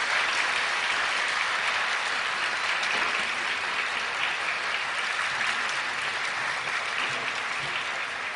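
A large seated audience applauding, a dense, steady clapping that eases off slightly near the end.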